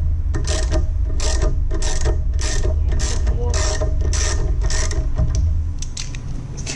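Socket ratchet clicking in steady back-and-forth strokes, about two a second, backing out a carburetor mounting bolt that is still binding.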